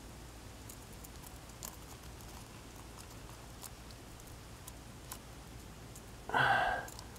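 Faint small clicks and ticks of a crankbait's treble hooks and plastic body being worked free from a bass's mouth by hand, scattered irregularly, over a low steady hum. A short louder sound breaks in about six seconds in.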